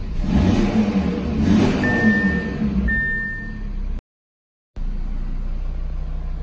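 Audi RS3's turbocharged five-cylinder engine idling just after startup, heard from inside the cabin, its secondary catalytic converters deleted; music plays over it. Two short high tones sound a couple of seconds in, and the sound drops out briefly about four seconds in.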